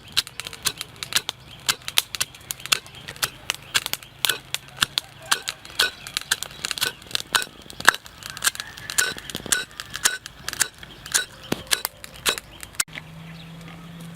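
A rapid, irregular run of sharp clicks and snaps, several a second, that stops abruptly near the end, leaving a faint low hum.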